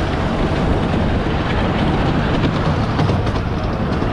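Ride-on miniature railway train running along the track, heard from aboard: a steady low rumble of wheels on the rails.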